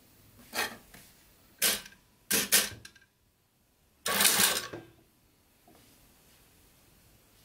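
Short bursts of rustling and clattering as a stiff fabric strip is handled and set under the presser foot of an industrial sewing machine: three brief ones in the first three seconds, then a longer one about four seconds in.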